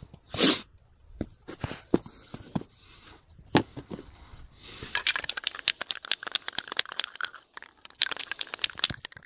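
Crinkling and crackling handling noise: a short loud rush about half a second in, then scattered clicks, turning into a dense run of fine crackles for the last four seconds.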